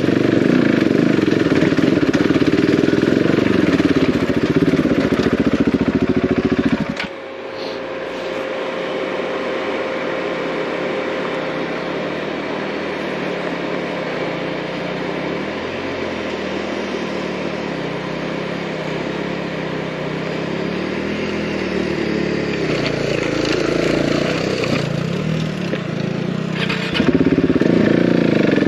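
Single-cylinder off-road motorcycle engine ridden over a rough lane. It runs loud for about seven seconds, then drops suddenly to a quieter, slower note whose pitch steps up and down, and comes back loud near the end.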